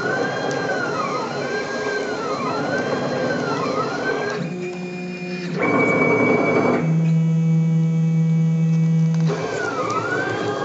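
CNC router's stepper motors whining as the gantry drives the tangential knife through cardboard. The pitch rises and falls in repeated arcs as the head traces curves. Midway the sound changes to steady tones with a louder noisy stretch before the arcs return near the end.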